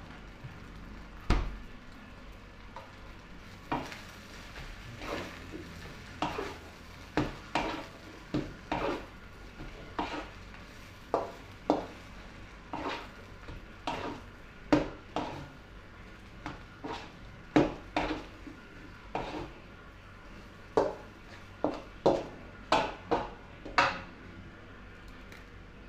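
A metal spatula scraping and tossing fried rice in a large steel wok, with sharp strokes about once a second at an irregular pace, over a steady frying sizzle.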